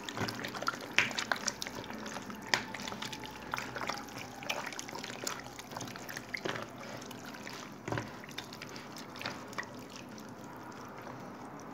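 Raw chicken wings being turned by a gloved hand in a plastic bowl of watery marinade: irregular wet squelches, sloshes and small clicks.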